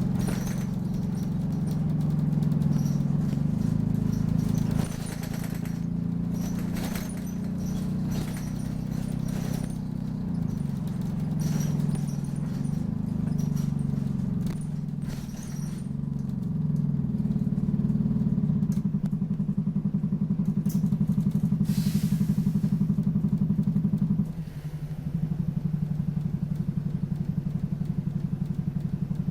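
Optare Solo midibus engine heard from on board: it revs up and down through the gears with rattles and squeaks from the bodywork, then settles into an even, pulsing idle for the last ten seconds, with a short hiss about 22 seconds in.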